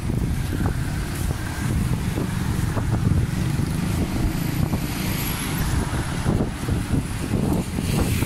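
Street traffic, cars and motorbikes passing, with wind rumbling on the microphone.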